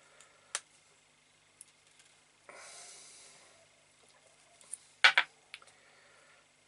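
Small handling sounds as a length of silver fly-tying wire is taken off its spool: a single click, a soft rustle of about a second, then a loud cluster of sharp clicks about five seconds in, followed by a few fainter ticks.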